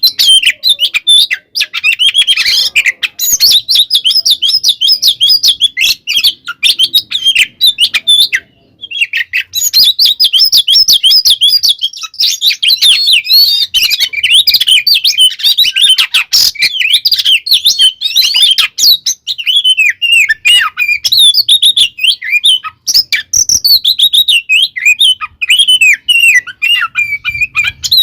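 Oriental magpie-robin (kacer) singing an agitated, combative song: a fast, unbroken stream of chirps and whistled phrases, with one short break about eight and a half seconds in.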